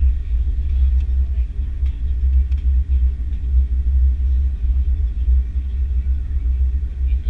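Steady low rumble of an Airbus A330-300 airliner taxiing, heard from inside the cabin.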